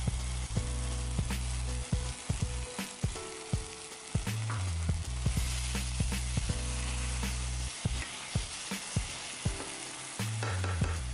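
Shimeji, enoki and maitake mushrooms in a miso and mirin glaze sizzling in a frying pan as a wooden spatula stirs them, its strokes clicking and scraping against the pan many times.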